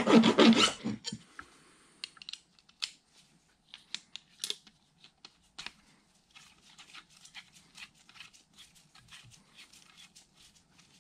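A hand file rasping back and forth on a replacement quill stop knob, stopping about a second in. After that come scattered light clicks and taps as the knob is tried in the housing slot, and from about halfway on, faint quick scraping strokes.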